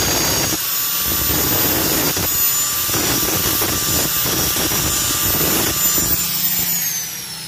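Angle grinder cutting through the end of a steel bolt, its high whine steady under an uneven grinding noise as the disc is pressed on. Near the end it is lifted off and switched off, and the whine falls as the disc spins down.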